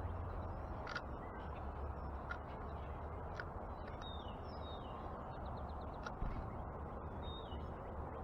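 Backyard birds calling with a few short descending chirps, twice, amid several sharp clicks over a steady low outdoor rumble.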